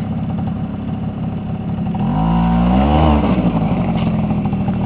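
ATV engine running at low revs, then revved up about two seconds in, its pitch rising to a peak and falling back about a second later before it runs on steadily under throttle.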